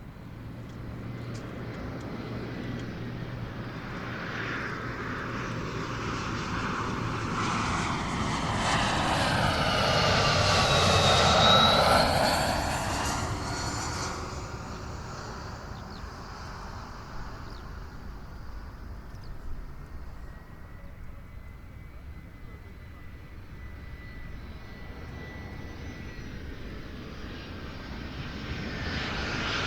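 A landing airplane passes low overhead: its engine noise builds, peaks about eleven seconds in with a high whine that drops in pitch as it goes by, then fades away. Near the end the next approaching plane begins to grow louder.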